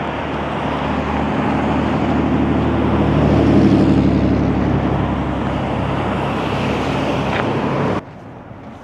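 A motor vehicle passing close by, its engine and tyre noise swelling to a peak about halfway through, then easing, and cutting off suddenly near the end.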